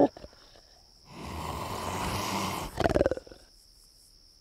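A cougar's rough, breathy snarl starting about a second in and lasting about a second and a half, ending in a short pulsing growl.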